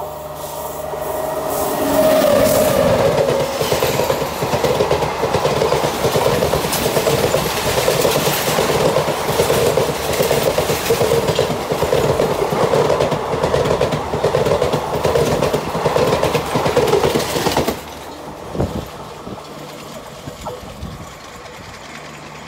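Electric-hauled passenger train passing close at speed, its coach wheels clattering rapidly over the rails. The noise swells over the first couple of seconds, stays loud while the coaches go by, and drops off abruptly a few seconds before the end as the last coach clears.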